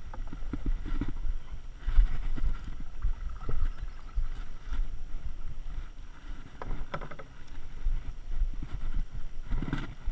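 A fishing kayak on the water: irregular knocks and clatter from the hull and gear over a steady low rumble, with a louder knock near the end.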